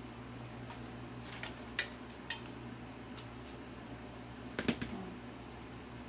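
A few light clicks and clatters of hand tools and a coiled plastic air hose being handled on a workbench, over a steady low hum. The sharpest clicks come about two seconds in, with a small cluster later on.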